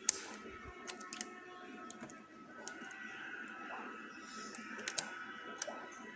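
Small, sharp clicks and taps at irregular intervals, a handful in all, from a lock pick and tension wrench working the pins of an oval lock cylinder.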